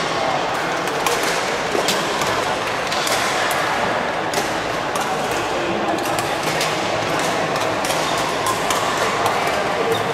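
Badminton rackets striking a shuttlecock during rallies: sharp cracks at irregular intervals, roughly one a second, over the steady din of a large sports hall with background chatter.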